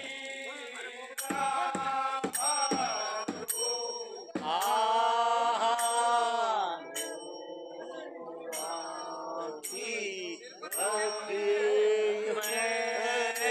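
A chorus of men singing a Kumaoni Holi song with long held notes. Through the first few seconds, drum strokes keep a beat of about two to three a second, and cymbals ring steadily.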